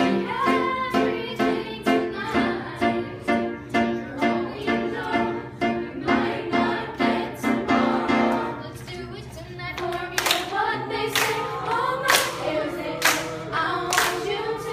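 Song with group singing over a quick, even plucked-string accompaniment. About eight seconds in the accompaniment drops away and the singing carries on over sharp claps about once a second.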